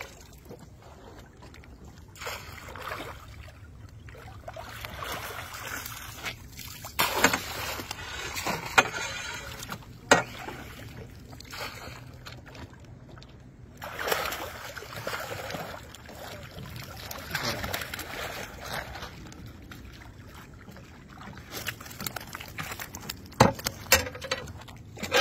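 Catfish thrashing in a landing net at the water's edge: irregular splashing and water sloshing, with a few sharp knocks, the loudest near the middle and near the end.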